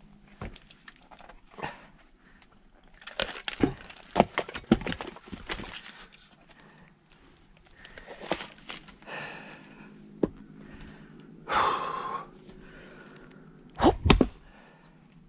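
Firewood being split: a run of sharp knocks and wood cracking a few seconds in, a longer cracking sound later, and two heavy strikes near the end.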